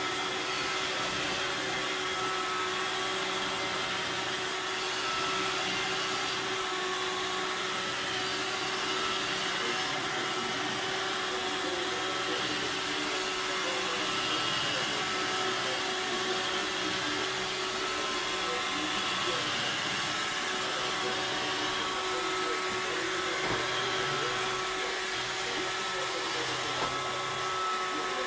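Robot vacuum cleaner running, a steady whir with a constant hum.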